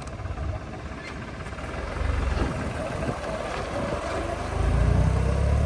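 Heavy diesel engine running, growing louder about four and a half seconds in.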